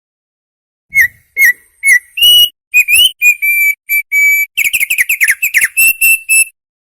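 Opior, an Indonesian white-eye, singing loud clear whistled notes after about a second of silence: three short notes, then longer held notes, then a quick rapid run of notes before it stops.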